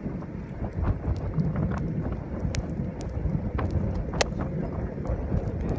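Gusty wind buffeting the microphone in an uneven low rumble, with scattered sharp ticks, the loudest about four seconds in.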